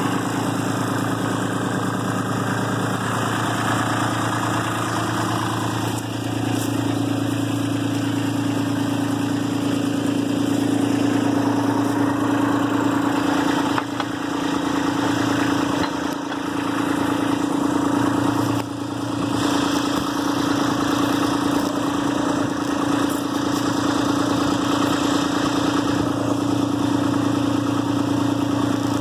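Kubota B2650 compact tractor's three-cylinder diesel engine running steadily.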